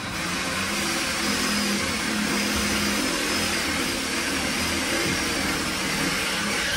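A motor running steadily, with a faint wavering high whine over a low hum.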